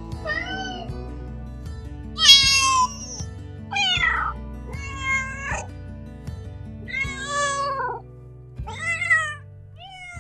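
Kitten meowing about seven times, short high calls with the pitch rising and falling, the loudest about two seconds in. Background music plays steadily underneath.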